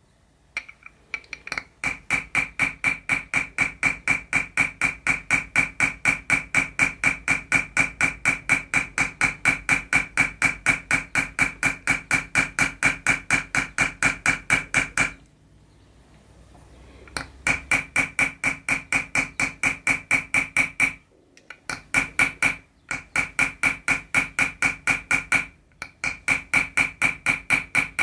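Chasing hammer tapping a steel chasing tool into 0.6 mm copper sheet set in pitch, in quick even strokes of about five a second, each blow giving a short ringing ping from the tool. The tapping pauses for about two seconds past the middle and stops briefly a few more times near the end.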